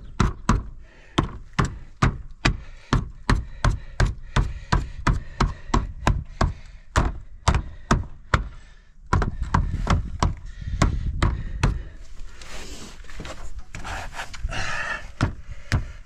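Hammer tapping lead flashing down against the brickwork: sharp knocks about three a second as the lead is dressed down onto the wall. About nine seconds in the knocks give way to a rougher, more continuous noise.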